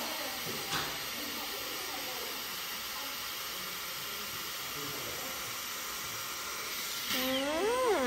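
Dyson Airstrait air straightener running, a steady hiss of air blowing from its arms as it is drawn down the hair. Near the end a voice exclaims with a pitch that rises and falls.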